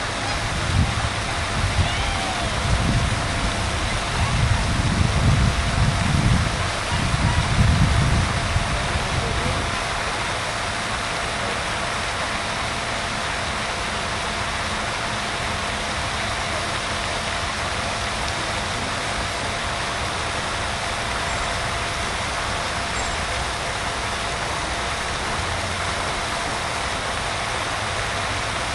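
Wind buffeting the microphone in low, uneven gusts for the first ten seconds or so, over a steady hiss of outdoor background noise with a faint constant hum.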